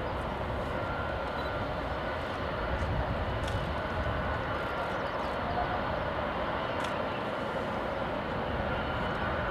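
Steady jet noise from an Airbus A380-861's four Engine Alliance GP7200 turbofans on final approach, an even rumble with a faint steady whine above it.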